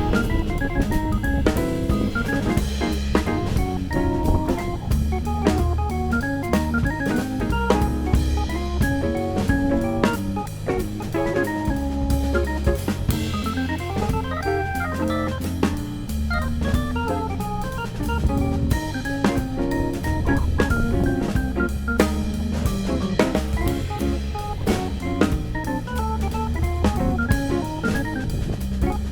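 Instrumental background music with a steady drum beat and organ-like keyboard notes.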